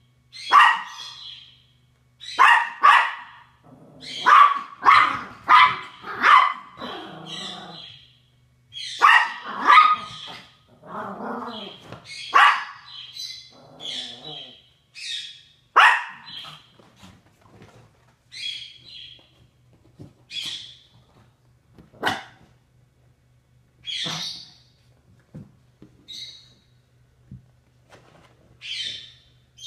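Chihuahua barking repeatedly in sharp, high barks, in quick runs for the first dozen seconds and then in single barks every second or two: alarm barking at deer.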